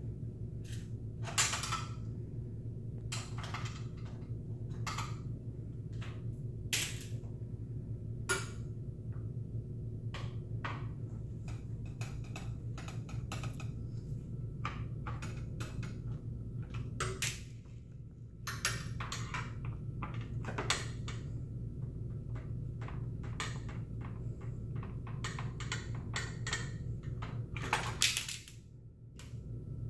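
Irregular sharp clicks and small knocks of a screwdriver working Phillips head screws out of a plastic motorcycle fender and turn-signal assembly as the part is turned in the hands, over a steady low hum.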